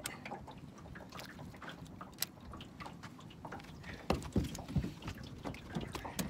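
Water lapping and small clicks and knocks around a small boat's hull, with a few louder low thumps about four seconds in.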